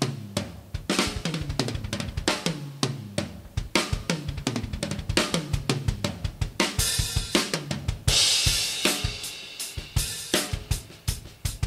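Kyre Iris Series acoustic drum kit with ash wood shells (22" bass drum, 10", 12" and 16" toms, 14x6.5" snare) played in a groove of bass drum, snare and tom strokes, with two cymbal crashes a little past the middle.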